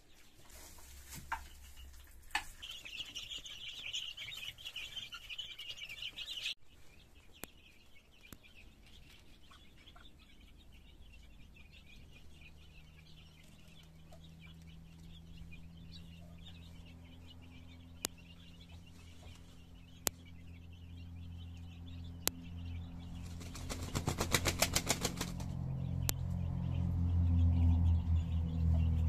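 A Muscovy drake ruffling and flapping its feathers: a quick run of fluttering beats about three-quarters of the way in, over a low steady hum that grows louder toward the end.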